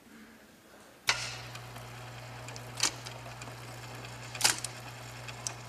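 Electric typewriter switched on about a second in, its motor then humming steadily, with two sharp key strikes.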